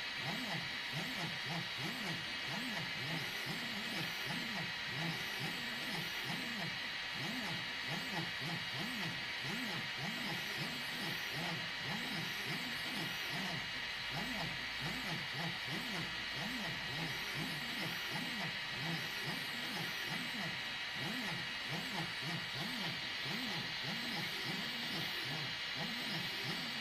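EasyThreed K10 3D printer printing: its fan hisses steadily while the stepper motors whine in short tones that rise and fall over and over with each move of the print head.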